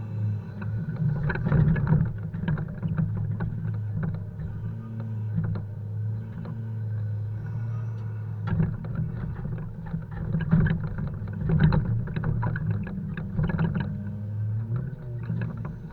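Volvo FH 520 truck's straight-six diesel running steadily while poplar logs are unloaded, with bursts of knocks and clatter from the logs and handling gear, heaviest about a second in and again through the second half.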